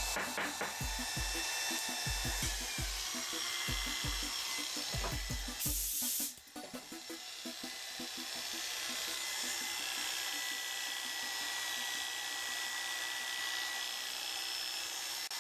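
Background music with a steady low beat, over small clicks and a short hiss about six seconds in.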